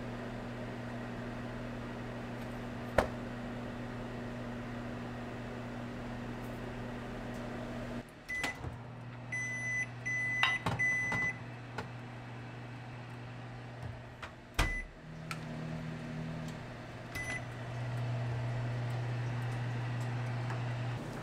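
Built-in oven's fan humming steadily, with a single click about three seconds in. Partway through, a string of short high beeps and clicks comes as a metal pan is set inside, then a sharp knock. A further beep follows, and near the end the hum comes back louder.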